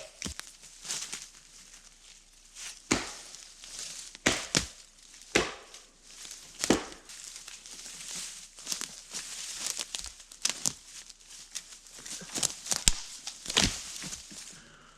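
Sticks and dry brush cracking and rustling: irregular sharp cracks and thumps at uneven intervals, with crinkly rustling between them.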